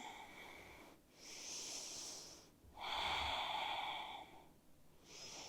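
A woman breathing audibly in slow, separate breaths: a soft hissy breath, then a longer, louder one about three seconds in, and the next breath starting near the end.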